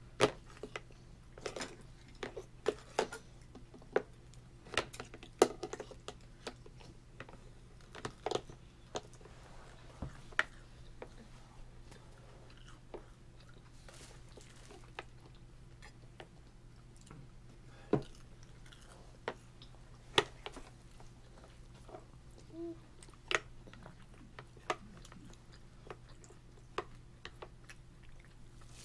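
A toddler eating: a small fork clicking and tapping on a plastic plate and high-chair tray at irregular moments, with chewing in between. A low steady hum runs underneath.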